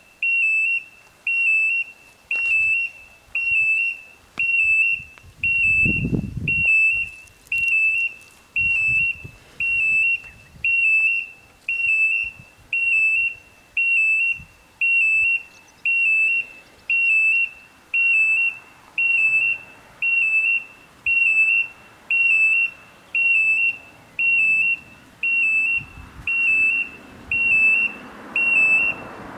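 Level crossing warning bells sounding an electronic beep, a single high tone about once a second, signalling that a train is coming. A low rumble builds underneath near the end.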